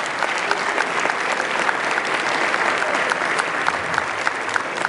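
An audience applauding steadily in a hall, a dense patter of many hands clapping, greeting newly sworn-in officers.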